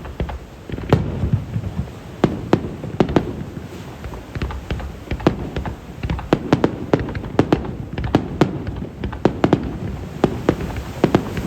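Aerial fireworks bursting in a dense barrage: many sharp bangs and crackles in quick succession over a continuous low rumble, starting abruptly.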